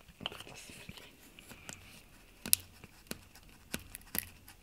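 Spatula prying and scraping at a cured resin print stuck fast to a resin 3D printer's build plate: about half a dozen short, sharp clicks and scrapes, spread out.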